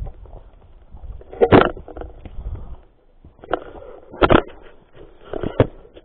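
Footsteps on a dirt forest trail mixed with handling knocks on the camera: irregular, loud thumps and scuffs a second or so apart, heaviest about a second and a half in and again around four seconds in.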